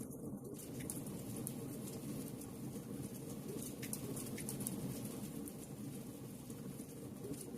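Logs burning in a fireplace: a steady low rush of flame with many small crackles and pops scattered throughout.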